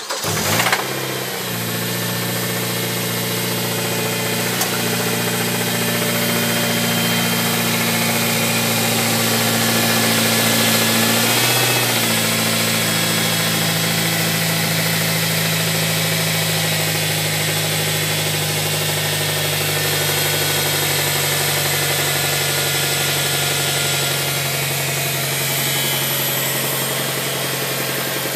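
Mazda 6 engine catching just after a start, then idling steadily with the knock the owner posts it for. The idle shifts slightly about twelve seconds in.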